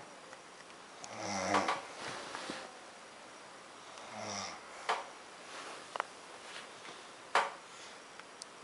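A woman snoring in her sleep: two pitched, rasping snores about three seconds apart, with a few short sharp clicks in between, the loudest near the end.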